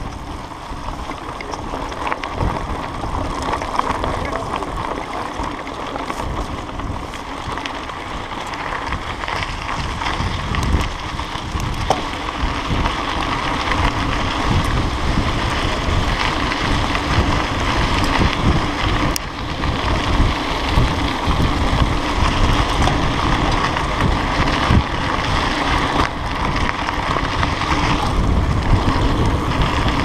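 Mountain bike riding over a dirt and gravel track: tyre rumble and the rattle of the bike, with wind buffeting the microphone, getting louder through the stretch.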